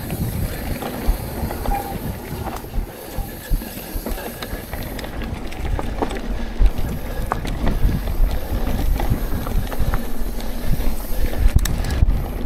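Mountain bike rolling down a dirt singletrack: tyres rumbling over dirt, roots and leaves, with frequent clicks and rattles from the bike as it bounces over the ground.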